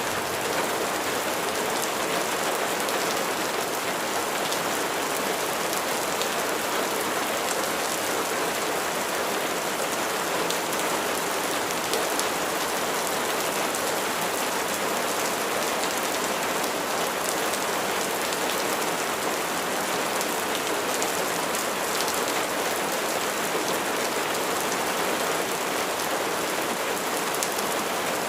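Steady rain falling on a surface: a dense, even hiss of drops with faint individual ticks, unchanging in level.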